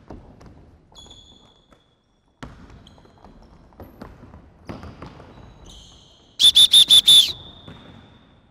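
A basketball dribbled on a hardwood gym floor, with sneakers squeaking on the boards. About six and a half seconds in comes a quick run of about six loud, high-pitched squeaks.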